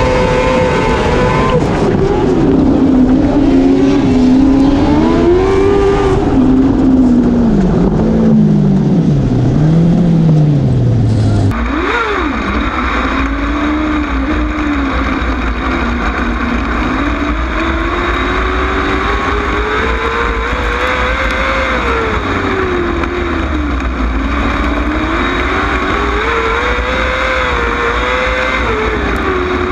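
Onboard sound of a winged dirt-track sprint car's V8 engine at racing speed, its revs rising and falling again and again as it goes through the corners and down the straights. A little before halfway the sound changes abruptly to a second sprint car's onboard engine, which rises and falls in the same way.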